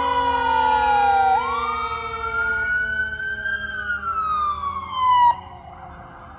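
Emergency vehicle siren wailing, its pitch sweeping slowly down, then up, then down again, over steadier lower tones that slowly fall in pitch; the wail cuts off suddenly about five seconds in.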